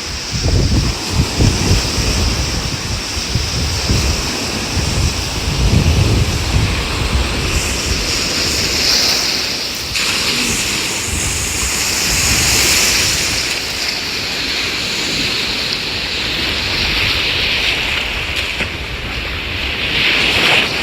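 Ocean waves washing in at the shore, swelling and easing, with wind buffeting the microphone in low gusts through the first several seconds.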